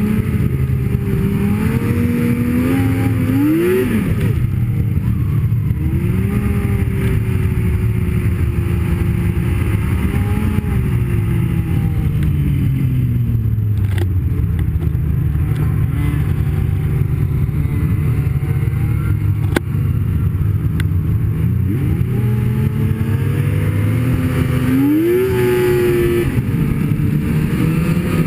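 Snowmobile engine running under way, its pitch climbing and dropping with the throttle: it rises twice in the first few seconds, eases down, holds steady for a long stretch, then climbs again near the end. Two sharp clicks come in the middle.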